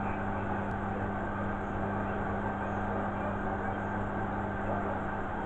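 Beko front-loading washing machine running, a steady even hum from its motor and drum.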